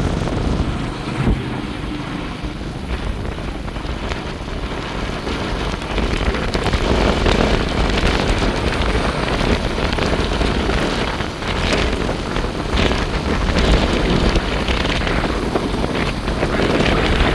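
Small motor vehicle running under way, with wind buffeting the microphone throughout.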